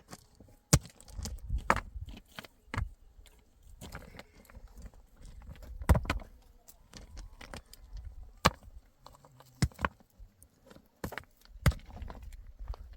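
Scattered sharp knocks and clicks at irregular intervals, with a low rumble between them.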